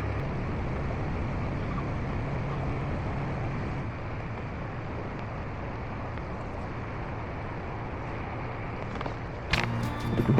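Narrowboat engine running steadily under way, with a steady hiss over it and a low hum that eases slightly a few seconds in. Background music comes in near the end.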